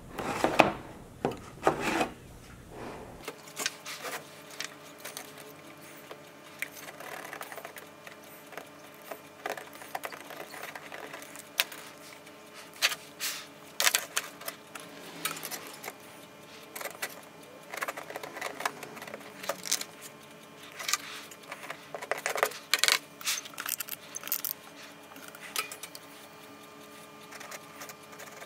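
Irregular small metallic clicks and clinks of a steel socket pressing and tapping on a steel mesh patch, holding it down in the softened polyethylene of a water tank while it sets. A few louder knocks come in the first two seconds.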